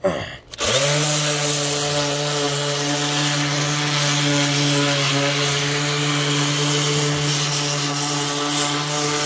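DeWalt random orbital sander starting up about half a second in, its pitch rising, then running steadily with a constant hum and a hiss as its pad rubs over painted wooden stair treads, roughing up the paint.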